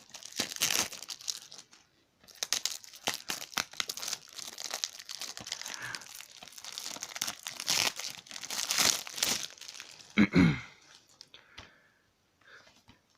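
Plastic shrink-wrap being torn off a DVD case and crumpled: dense crackling and tearing that runs in bursts, with a short pause about two seconds in. A brief, loud falling squeak comes about ten seconds in.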